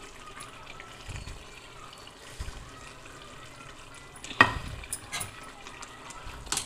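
Curry simmering in a steel pot with a faint, steady sizzle. From about four seconds in, a metal ladle stirs it, knocking against the pot a few times.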